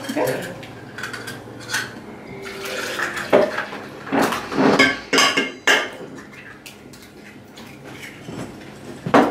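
Eggs being tapped and cracked on the rims of stainless steel mixing bowls: a series of sharp, irregular clinks and knocks, busiest in the middle, with one loud knock near the end.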